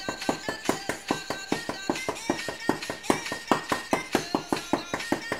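Knife point stabbing down rapidly into a cloth-covered wooden table between splayed fingers, a fast run of sharp taps at about six or seven a second.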